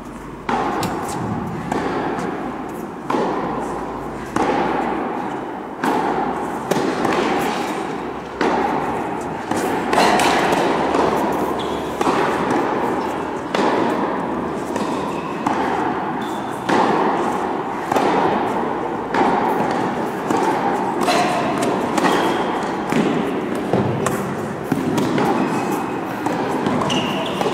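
Tennis rally: ball struck by rackets and bouncing, sharp hits about one every second and a half, each ringing on in the large hall.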